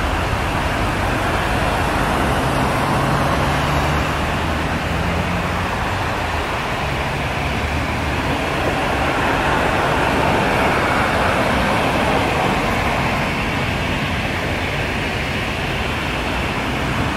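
Jet airliner engine noise: a loud, steady rushing sound that swells slightly past the middle.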